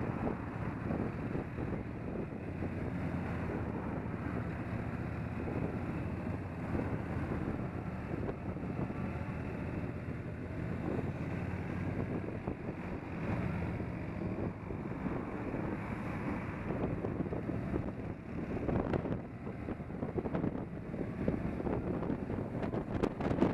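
Cruiser motorcycle engine running at a steady road pace, with wind noise on the microphone that gusts louder near the end.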